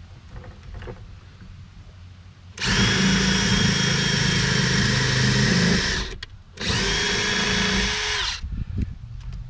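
Cordless drill-driver running twice, first for about three seconds and then, after a short pause, for under two seconds, spinning up at the start of each run and then holding a steady whine. It is driving hardware in during reassembly.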